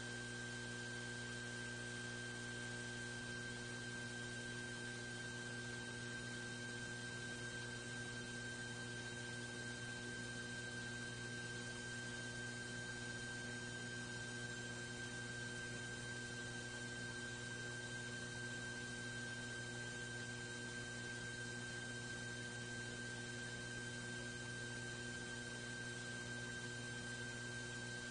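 Steady electrical mains hum with hiss and a thin, high steady whine.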